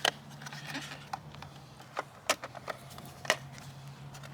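Scattered sharp plastic clicks and taps, about half a dozen, as the mobility scooter's control-panel cover is handled and snapped back into place, over a faint steady hum.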